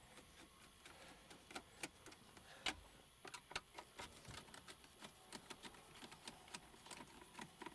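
Faint, irregular clicks and light taps of a screwdriver and small screws as the car radio's mounting screws are backed out.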